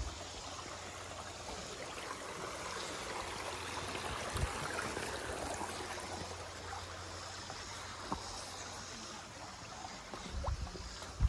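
Steady rushing and trickling of a small creek, swelling a little midway, with a few short knocks.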